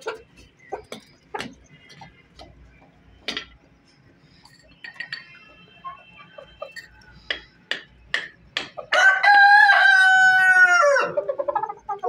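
Aseel rooster crowing once, a long crow starting about nine seconds in, held level for about two seconds and dropping in pitch at its end. Before it, scattered short clucks and clicks from the chickens.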